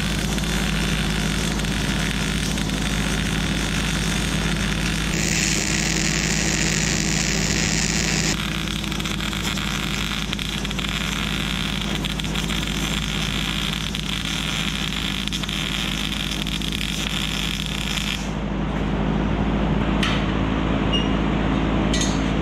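MIG welder crackling steadily as a bead is run on a steel frame, over a steady low hum. The crackle stops about three-quarters of the way through, leaving the hum and a few light clicks.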